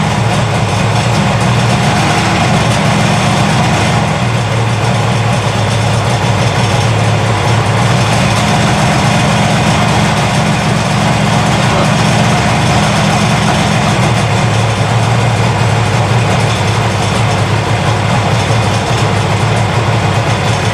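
1972 Kawasaki S2 350's three-cylinder two-stroke engine running steadily, firing on only two cylinders because the middle cylinder, number 2, isn't firing.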